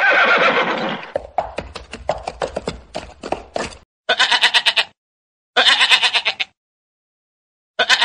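A horse whinnies, trailing off into a run of short pulses until nearly 4 seconds in. A sheep then bleats twice, and a goat's bleat begins near the end.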